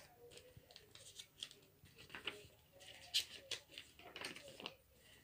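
Faint crisp rustling and flicking of paper as the pages of a handmade paper-and-card junk journal are turned and brushed by hand, in a series of short, uneven bursts.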